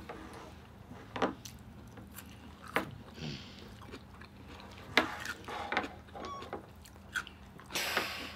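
Cooked Dungeness crab shell being broken and picked apart by hand, with a few sharp cracks and clicks spread out and a longer crackle near the end, over chewing.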